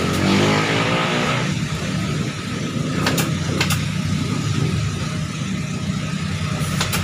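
A motor vehicle engine running steadily, its pitch falling in the first second or so, with a few light clicks about three seconds in and near the end.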